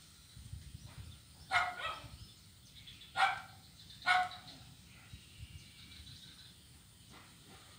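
A dog barking three times, with the first bark about a second and a half in and two more about a second apart near the middle.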